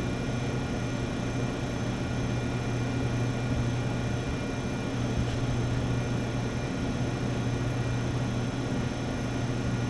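Steady low machine hum of laboratory equipment with a few faint, constant high-pitched whine tones over it.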